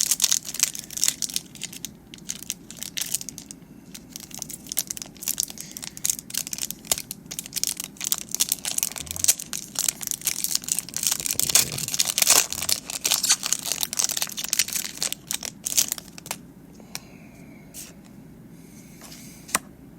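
Foil Pokémon booster pack wrapper being torn open and crinkled in the hands, a dense crackling rustle that dies down to quieter handling about sixteen seconds in.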